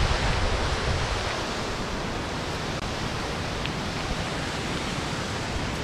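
Steady rushing of water from the waterfall's cascades, an even hiss, with a burst of low wind rumble on the microphone right at the start.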